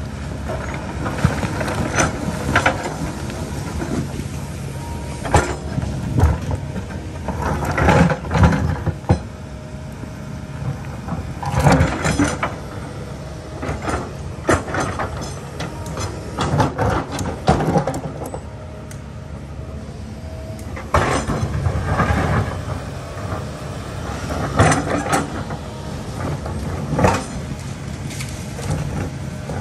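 Kobelco excavator's diesel engine running steadily, with repeated irregular knocks and scrapes as the bucket works against rock.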